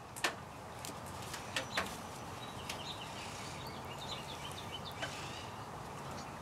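A few light clicks and taps of a fork against a plate of fried eggs and bacon as food is cut and picked up, with faint bird chirps in the background.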